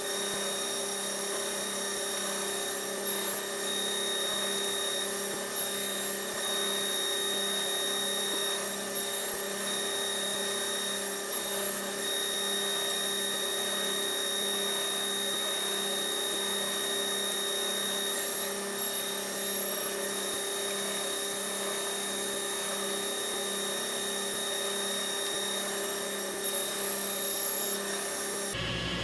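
A woodshop machine motor running steadily, a constant hum with a high whine and no cutting load. The sound stops abruptly just before the end.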